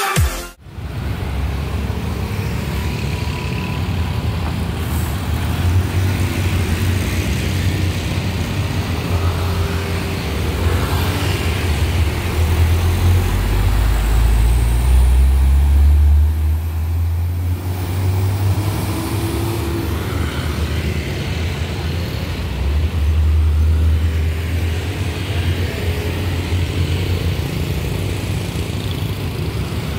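Road traffic of motorcycles and cars passing close by. A heavy cement mixer truck's diesel engine swells to the loudest point about 13 to 17 seconds in, then fades.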